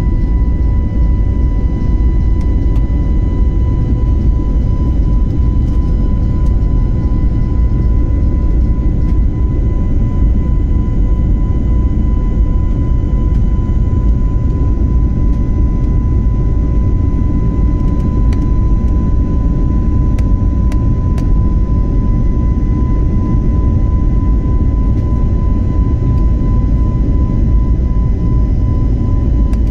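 Airliner cabin noise during the climb after takeoff: a loud, steady low rumble of engines and airflow, with a constant high-pitched tone over it.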